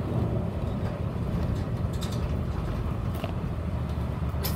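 Nishitetsu city bus driving through town, heard from inside the passenger cabin: a steady low engine and road rumble, with a few light clicks.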